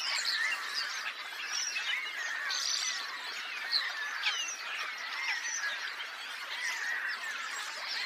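A large flock of common starlings calling together: a dense, continuous chatter of many overlapping whistles and squeaks.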